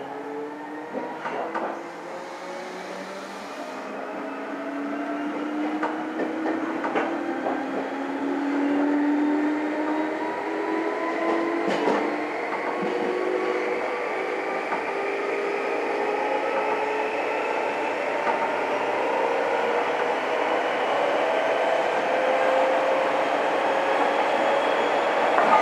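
Meitetsu electric commuter train heard from inside the carriage as it accelerates. Several whining tones from its traction motors climb steadily in pitch as it gathers speed, growing gradually louder, with a few sharp clacks of the wheels over rail joints.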